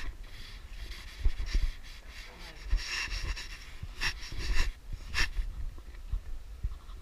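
Body-worn camera picking up its wearer walking: low footstep thumps at an uneven pace and short rustling hisses of clothing or breath against the mic.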